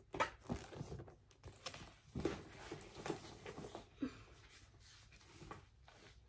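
Leather backpack strap being handled and adjusted through its buckle and slipped over the shoulder: scattered soft rustles and a few light clicks.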